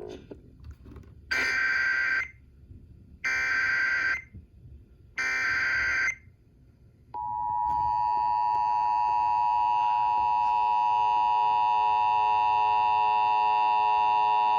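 Emergency Alert System tones on broadcast radio: three data-header bursts of about a second each, a second apart, encoding a flash flood warning, then the steady two-tone attention signal starting about seven seconds in.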